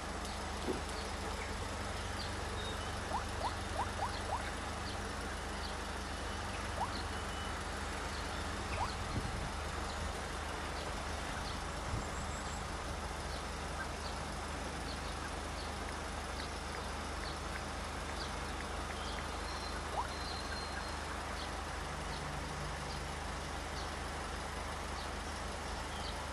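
Steady outdoor background noise with a low rumble, and faint short chirps scattered through it.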